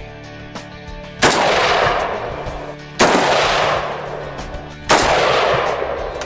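Rifle gunfire: three loud volleys about two seconds apart, each starting sharply and dying away over a second or so, over background music.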